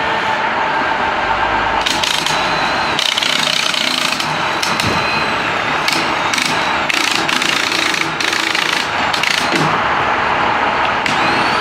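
Utility digger derrick truck's engine running steadily, with intermittent short clanks and a couple of brief squeals.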